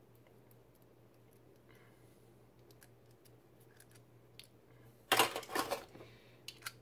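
Small metal reloading parts handled on the bench: a few faint ticks, then a quick run of sharp metallic clatters about five seconds in as pieces are set down, and a couple of small clicks near the end.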